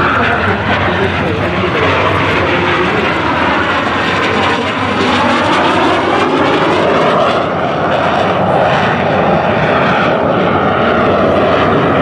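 Aermacchi MB-339 jet trainer's Rolls-Royce Viper turbojet running loud and steady as the aircraft flies an aerobatic display pass. Its rushing noise has a tone that sweeps up and down as the jet moves.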